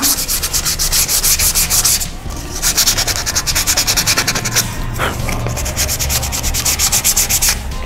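Sandpaper rubbed by hand in quick, even back-and-forth strokes along the edge of a painted wooden piece, with a brief pause about two seconds in. The sanding takes paint off the laser-cut edge.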